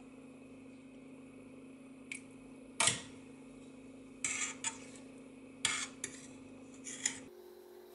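Metal spoon stirring onion skins in a stainless steel pot of dye water, clinking and scraping against the pot five or six times, loudest about three seconds in. A steady low hum runs underneath.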